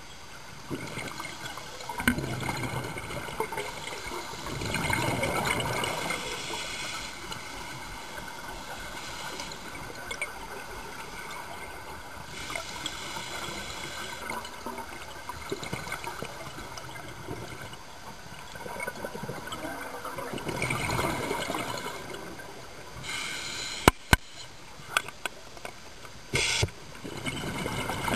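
Scuba diver breathing through a regulator underwater: slow cycles of hissing inhaled air and rushing exhaled bubbles, every several seconds, with a few sharp clicks near the end.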